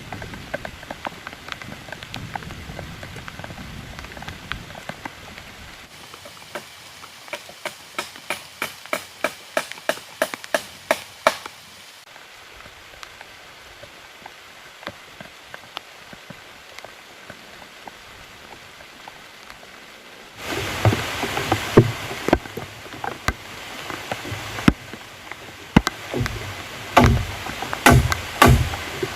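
Steady rain falling, with a quickening run of sharp knocks a few seconds in. Near the end the rain noise grows louder and more knocks come in quick succession.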